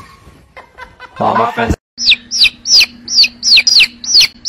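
A brief shout about a second in, then a quick run of loud, high chirps, each falling in pitch, about two and a half a second, over a steady low hum.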